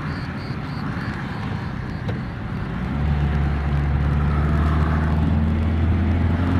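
Car engine and road noise heard from inside the cabin while driving on a highway. About three seconds in, a steady low engine drone grows louder.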